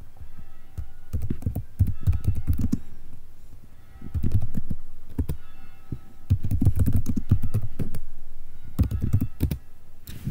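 Computer keyboard typing in four quick bursts of keystrokes with short pauses between them.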